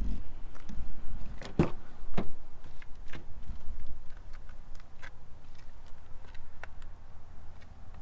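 Rear passenger door of a Ford Bronco Sport being opened: two sharp clicks from the handle and latch, about half a second apart, followed by a few faint ticks.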